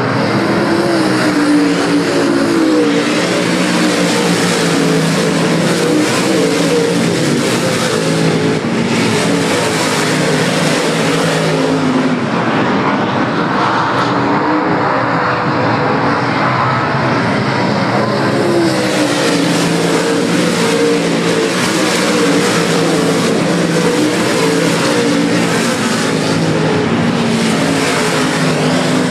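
Race car engines running hard on a dirt oval, a continuous loud engine noise from several cars circling the track. The engine note rises and falls as cars come past, with clear rising revs near the start and again about two-thirds through.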